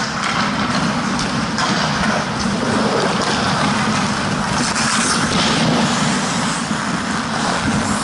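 Steady rushing noise of an ice hockey game heard from a helmet-mounted camera, with light scrapes and taps of skates and sticks on the ice scattered through it.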